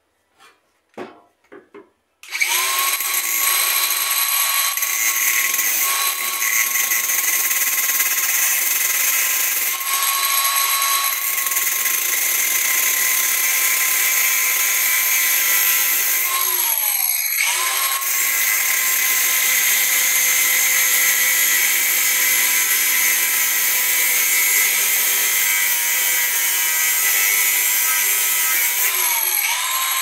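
DeWalt angle grinder with a cut-off disc starting up after a few handling clicks and cutting into a rusted steel washing-machine transmission bearing, a loud steady high whine over a hiss of grinding. The whine sags in pitch and picks up again twice, about seventeen seconds in and near the end. The seized bearing is being cut into pieces to remove it without a puller.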